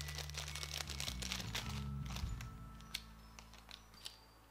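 Small packaging being handled and opened by hand: crinkling with many small clicks, thinning out after about three seconds, over quiet background music with a low bass line.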